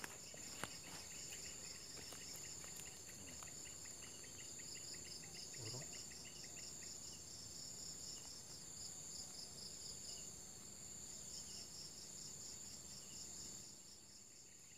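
Insects chirring steadily: one high continuous trill together with a second, pulsing trill. A lower, faster-pulsed chirping runs alongside and fades out about halfway through.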